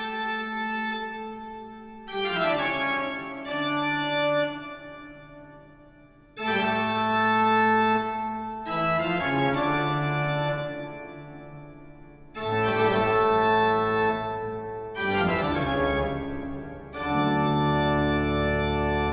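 Organ music: slow, held chords, a new chord every two to three seconds.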